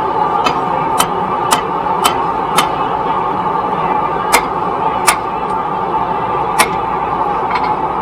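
Hammer blows on metal at the anvil while forging: five evenly spaced ringing strikes about twice a second, then three more spaced out. A steady rushing noise runs under them throughout.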